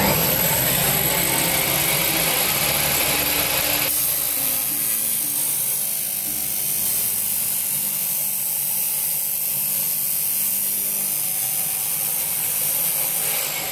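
Abrasive cut-off saw cutting through a motorcycle exhaust pipe: a loud, steady high-pitched grinding whine that changes tone about four seconds in as the disc bites into the metal.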